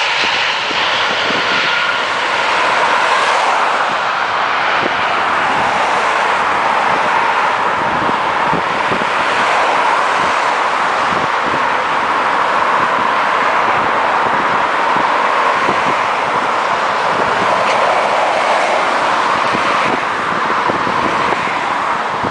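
A steady loud roar of jet engine noise from a landing airliner and road traffic blended together, with no distinct pass-bys, easing off near the end.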